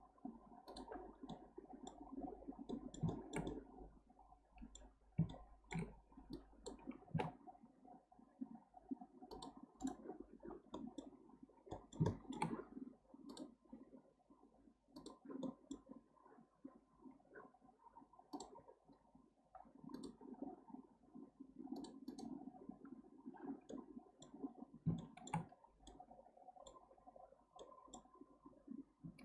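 Computer mouse buttons and keyboard keys clicking irregularly as a Blender model is edited, over a faint steady hum.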